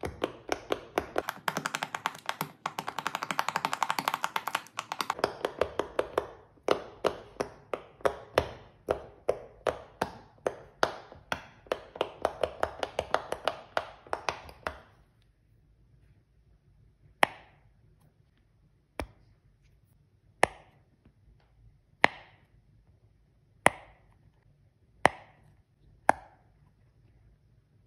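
Bubbles of a large silicone pop-it fidget toy being pressed in with a finger, each giving a short pop. The pops come in a fast run at first, then about three a second, and from about halfway on they come singly, one every second and a half or so.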